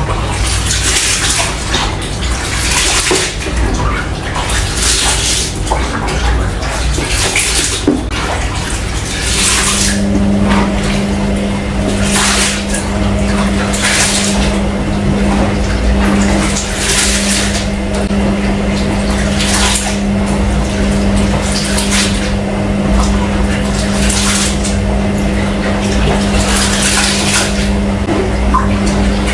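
Water sloshing and splashing in a plastic tub as hands scrub and stir a batch of dates, in repeated surges about one every second or two. A steady low hum comes in about ten seconds in.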